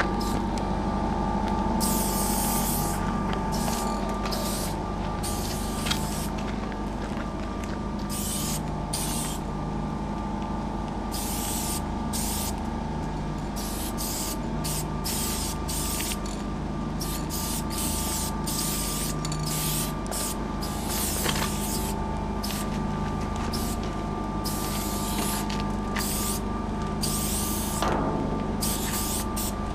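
Aerosol spray-paint cans hissing in repeated short bursts, some a fraction of a second and some about a second long, as graffiti is sprayed onto a freight train car. A steady mechanical hum runs underneath.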